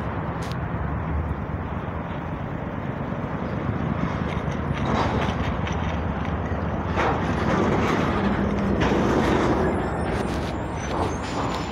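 Metro train running: a steady rumble and rattle that swells somewhat from about seven to ten seconds in.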